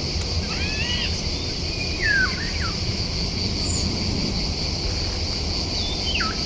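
Wild birds calling over a steady high insect drone: a few short calls that arch and glide downward in pitch, spaced a couple of seconds apart.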